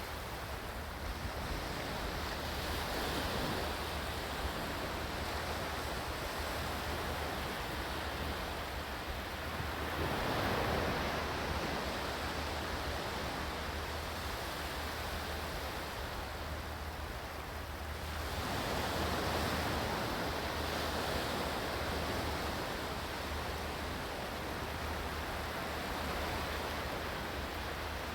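Ocean waves: a steady rush of surf that swells three times, about every eight or nine seconds, as waves break and wash in.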